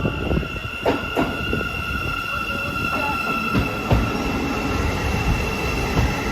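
Class 717 Siemens Desiro City electric multiple unit running through the station: steady rail rumble under a high, steady squeal, with a few irregular knocks from the wheels.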